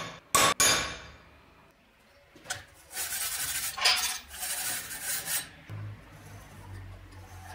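Steel parts clanking together: three sharp, ringing metal knocks about a second apart, then a few seconds of metal scraping.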